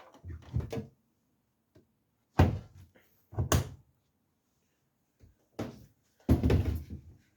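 Several separate knocks and bumps from a washing machine being handled while laundry is loaded, with the door and drum knocking; the loudest come about two and a half seconds in, a second later, and near the end.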